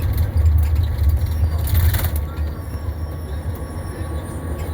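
Blue Bird Vision school bus running, a steady low engine rumble, with a brief hiss about two seconds in.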